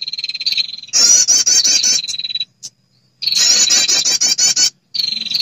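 Lure recording of a female perenjak (prinia) calling: bursts of about 1.5 s of rapid, sharp, high chip notes, about five a second, over a steady high trill, repeated three times with short pauses between. This is a lure call used to draw in males.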